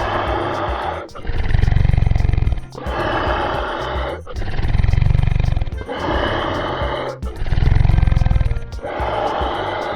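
Dinosaur roar sound effect repeated about every three seconds, each roar followed by a deep low rumble, over background music.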